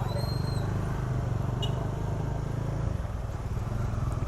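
Motorcycle engine running steadily at low revs, with a short high chirp right at the start.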